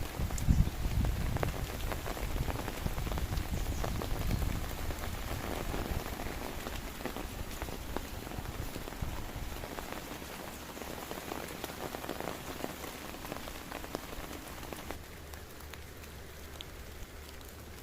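Heavy rain falling steadily, with many drops ticking. A low rumble in the first half dies away, and the rain gets a little quieter near the end.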